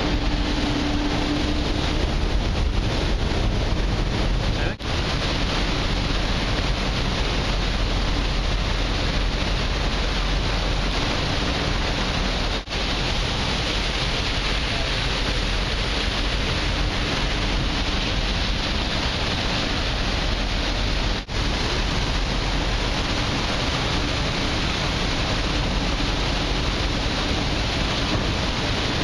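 Steady rush of propeller-churned sea water along a ferry's hull, with wind on the microphone and a low rumble from the ship's engines underneath. The sound drops out for an instant three times.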